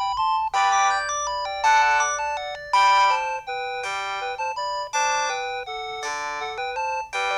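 Samsung SPH-N195 mobile phone playing a polyphonic ringtone: a synthesized melody of short notes and chords.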